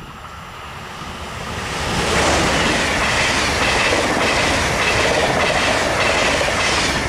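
ČD Railjet express train passing at speed: the rail noise swells over the first two seconds, then a loud steady rush of wheels on rail with quick clickety-clack as the coaches' bogies go by, easing off only at the very end.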